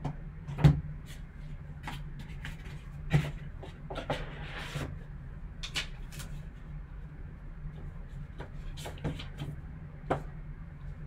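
Cardboard boxes and a foam insert handled by gloved hands and set down on a table: a series of sharp knocks and taps, the loudest about a second in, with a brief scraping slide around four seconds in. A steady low hum runs underneath.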